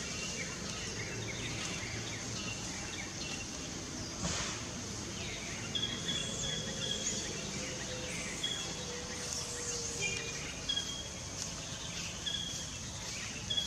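Forest ambience: a steady high hiss of insects, with short high bird chirps repeating every second or so through the second half.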